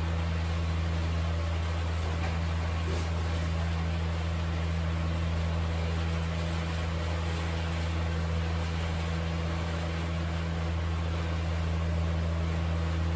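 A steady low mechanical hum over a constant hiss.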